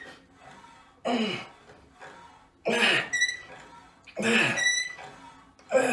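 A man grunting with effort four times, about every second and a half, each a short groan that falls in pitch, as he works through reps of a cable exercise. A brief high ring follows several of the grunts.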